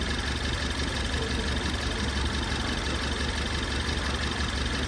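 2018 Ford Taurus four-cylinder turbo engine idling with a pulsing, uneven rumble. It is misfiring on cylinder 1 (code P0301), the stumble the customer complained of.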